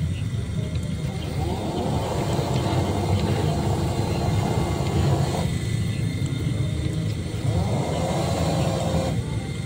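Radio-controlled model boat's motor throttled up twice over a steady low rumble. Each time a whine rises in pitch, holds for a few seconds, then cuts off: once about five and a half seconds in and again near the end.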